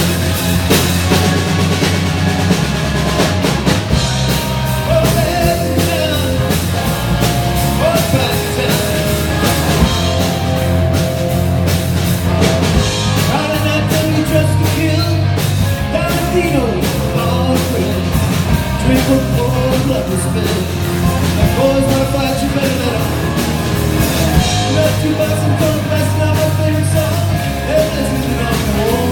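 Rock song played by a band, with a drum kit keeping a steady beat under singing.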